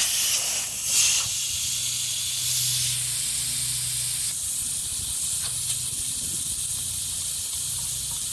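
Air hissing steadily out of a car tyre through its opened valve stem as the tyre is let down, ahead of filling it with tyre sealant. The hiss is strongest in the first second.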